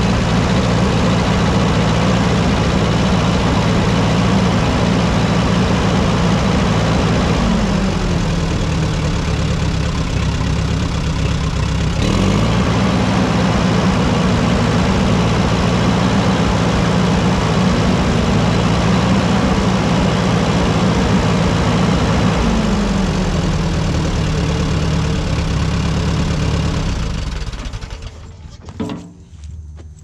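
Case 1835B skid steer's carbureted, points-ignition petrol engine running on its first start after new ignition parts, its speed shifting up and down a couple of times, then shut off near the end. It sounds pretty good: the ignition fix has made it a runner.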